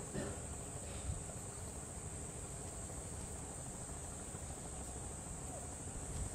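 Insects chirping in a continuous high-pitched chorus, over a low background rumble.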